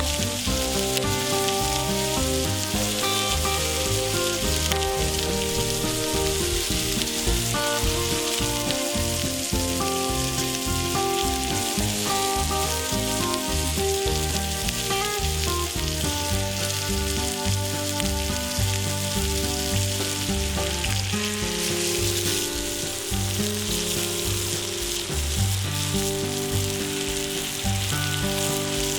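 Thick steak sizzling as it fries in a pan, under background music with a melody and a bass line.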